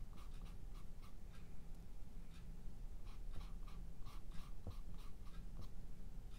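Bristle paintbrush scrubbing oil paint onto a textured stretched canvas, in a run of short, uneven dry strokes, about three a second.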